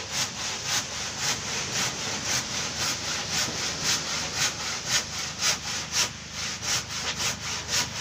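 Handsaw cutting through a wooden plank in quick, even strokes, about three a second, with a brief break about six seconds in.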